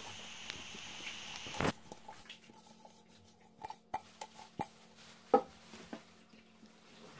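A knock, then a series of sharp knocks and clinks as a stainless steel mixing bowl is lifted and set down on a silicone pastry mat. The loudest, about five seconds in, rings briefly like metal.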